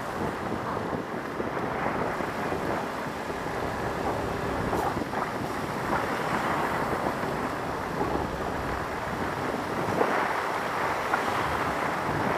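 Steady wind noise rushing over the microphone of a camera mounted on a moving Honda scooter, with the scooter's road noise underneath.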